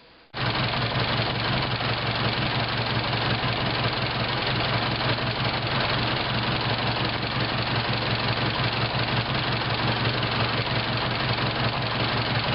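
The engine of a 1915 runabout running steadily at idle. It cuts in suddenly just after the start.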